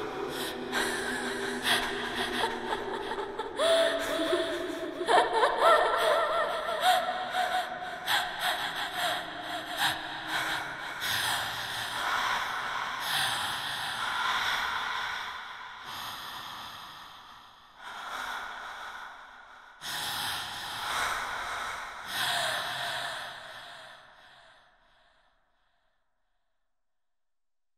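Film soundtrack of breathy, gasping vocal sounds over held tones, in short swells that fade out to silence near the end.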